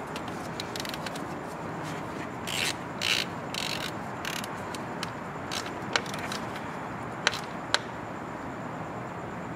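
Hand ratchet with an extension being worked on the coil-pack bolts to snug them lightly, with scrapes and rubs of metal handling. A few sharp single clicks come about six and seven to eight seconds in.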